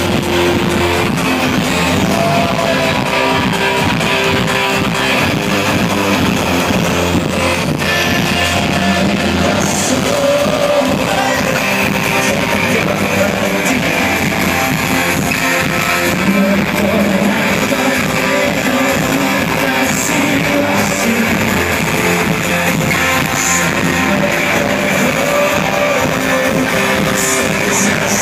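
Synth-pop band playing live and loud, with electric guitar, keyboards and a singer's voice, heard through a phone's microphone in the crowd.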